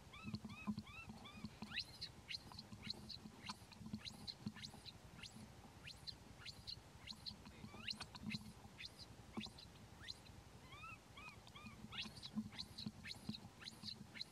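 Infant macaque crying in a rapid series of short, high squeaks and chirps.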